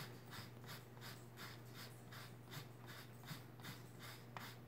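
Parmigiano cheese grated on a long handheld rasp grater: faint, even scraping strokes, about three a second. A low steady hum runs underneath.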